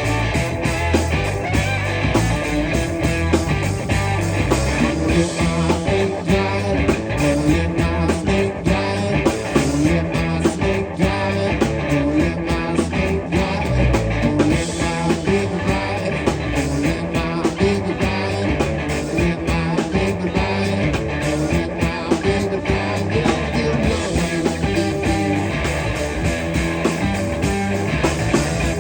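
A live band playing guitar-led rock music over a steady drum beat.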